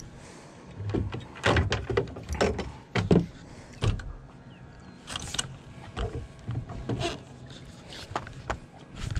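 Irregular knocks and rubs from a spinning rod and reel being handled while playing a hooked fish, over a low steady hum.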